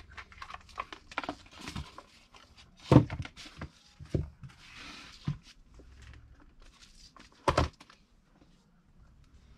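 Handling noises as hands work on a small air-purifier unit and its fittings: scattered clicks and knocks, two loud thunks about three seconds in and again about seven and a half seconds in, and a brief rustle around five seconds in.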